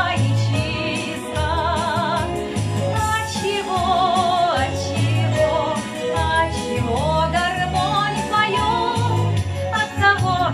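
A woman singing a Russian song with wide vibrato on her held notes, over an instrumental backing track with a steady bass beat.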